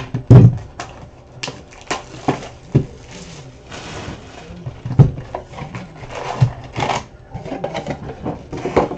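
A cardboard trading-card hobby box being handled and opened on a table: a string of sharp knocks and taps, with a stretch of rustling and tearing of the wrapping around the middle.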